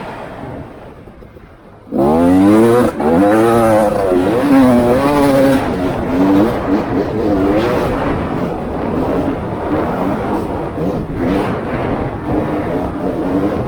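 Off-road vehicle's engine, running low for the first two seconds, then opened up suddenly about two seconds in and revving up and down again and again as the throttle is worked.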